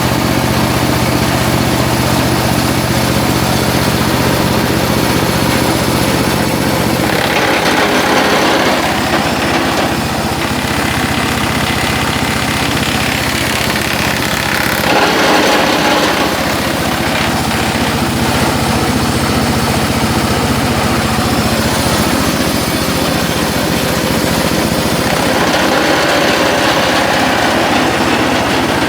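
Cardboard chopper machine driven by a 24 hp diesel engine, running steadily. The noise turns louder and harsher for a few seconds at a time, three times.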